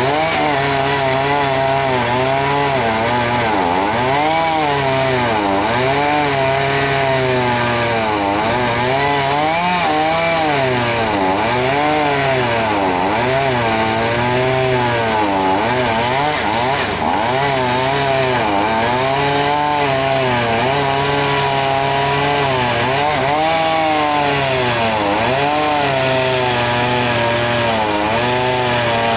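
Chainsaw running while cutting into a poplar tree, its engine note rising and falling over and over as the chain bites into the wood and frees.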